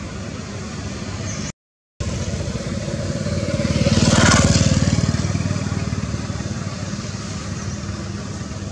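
A motor vehicle engine running steadily. It grows louder to a peak about four seconds in and then fades, as if driving past. The sound drops out entirely for half a second early in the clip.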